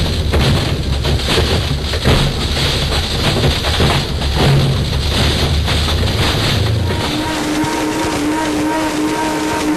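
Blendtec blender motor running at full speed while it smashes an iPhone, a steady motor drone full of crunching and rattling fragments. It stops about seven seconds in, and held musical notes take over.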